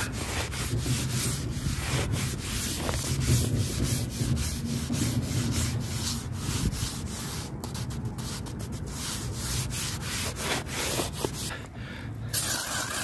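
A sponge scrubbing over a wet mortar coating on a cement bowl in rapid rubbing strokes, texturing the surface. The strokes stop near the end, and a brief hiss follows.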